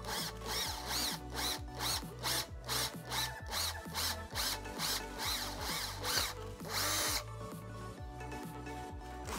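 Cordless drill boring a hole through a plastic motorcycle rear fender with a twist bit, running in quick repeated bursts, its whine rising and falling, with one longer burst near the end. Background music underneath.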